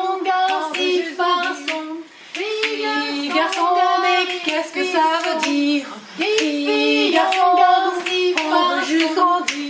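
A woman's voice singing a children's song refrain over a steady beat of hand claps, with short breaks between phrases.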